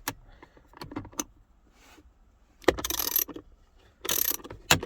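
Hand ratchet clicking in short bursts as it backs out a 1/4-inch bolt under a steering wheel. A few light clicks come first, then a burst about two and a half seconds in and another near the end.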